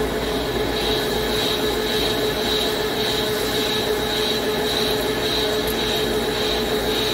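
Hankook CNC lathe turning an alloy cast steel coupling: steady machining noise with a constant mid-pitched hum and a high whine that swells and fades about once a second.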